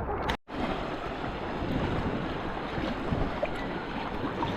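Steady rushing of sea water and wind on the microphone, with a brief dropout to near silence about half a second in.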